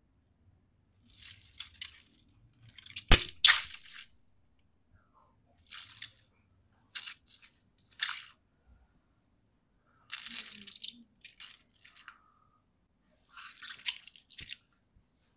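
Boot sole crushing mesh squeeze balls filled with water beads: a series of separate short crunches, about seven, the loudest with a sharp snap about three seconds in.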